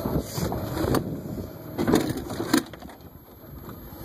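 Golf cart rolling along, with a rough rumble and several sharp knocks and rattles, the loudest about two and two and a half seconds in; the rumble drops away near the end.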